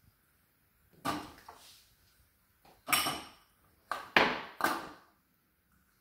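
Drinking glasses set down one at a time, upside down, in a dishwasher's wire top rack: several short clinks and knocks of glass against the rack, with quiet gaps between.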